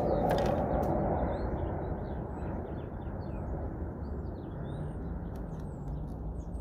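Outdoor ambience: small birds chirping over a steady low background rumble, the rumble a little louder in the first second or so.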